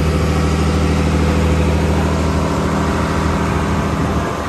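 Fishing boat's engine running steadily under way, a low even drone, with the rush of the hull's wake and wind over it. The drone eases slightly near the end.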